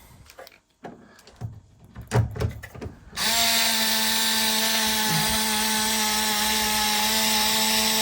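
A few light handling clicks, then about three seconds in a cordless drill or electric screwdriver starts and runs steadily at constant speed.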